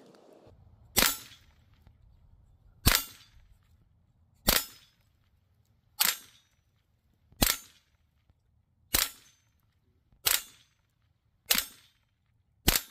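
Huben GK1 .25 calibre semi-automatic pre-charged pneumatic air pistol firing nine shots at a steady pace, about one every one and a half seconds. Each shot is a sharp crack with a short tail.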